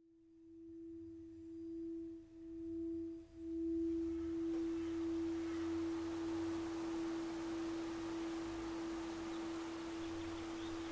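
A single steady drone tone fades in from silence and holds at one pitch, dipping briefly twice a few seconds in, over a low hum. A soft hiss grows behind it from about four seconds in.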